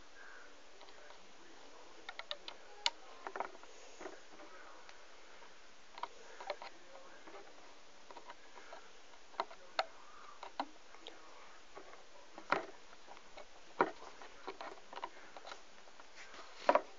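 Scattered light clicks and taps of rubber loom bands being stretched with a hook onto the plastic pegs of a loom, some in quick little clusters, over a faint steady hiss.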